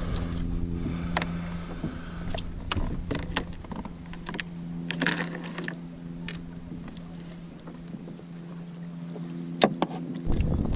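Small waves lapping and slapping against a plastic sit-on-top kayak's hull, with scattered knocks and a sharp knock near the end. Wind rumbles on the microphone, eases off in the middle and comes back at the end, over a steady low hum.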